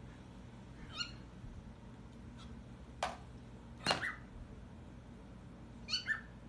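Cat meowing in short, high calls: one about a second in and two in quick succession near the end, with a couple of sharp clicks in between.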